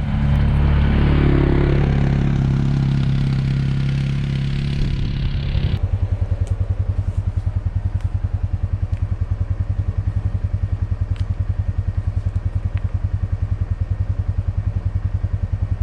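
A small utility vehicle's engine pulls away under load for about six seconds. It then drops suddenly to a steady, evenly pulsing beat.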